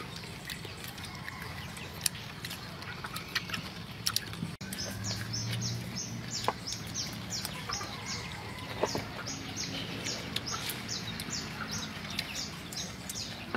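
A bird repeating a short, high, falling chirp about three times a second, starting about four and a half seconds in, with scattered light clicks.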